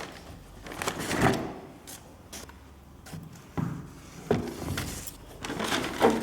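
A cardboard shoebox and its packing being handled: a string of scrapes, rustles and knocks, the loudest just before the end.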